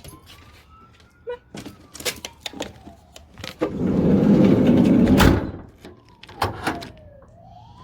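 A van's sliding side door rolling along its track and slamming shut about five seconds in, after a few clicks and knocks of handling.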